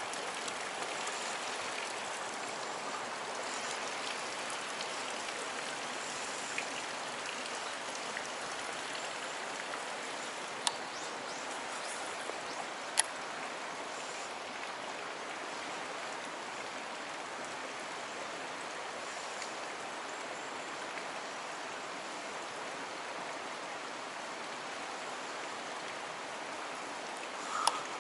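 Steady rush of stream water flowing over bedrock ledges in a rocky gorge. Two sharp clicks stand out about two seconds apart near the middle.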